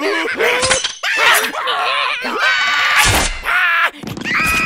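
Cartoon soundtrack of squeaky, wordless character vocal sounds and hits, with a loud crash and deep thump about three seconds in. Steady musical tones come in near the end.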